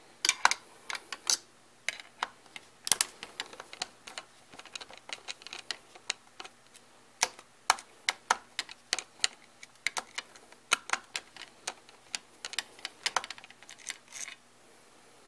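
Screwdriver working a screw out of the metal tape-transport mechanism of an early-1980s Hitachi top-load VCR: a long run of irregular, sharp metallic clicks and taps, with short pauses between clusters.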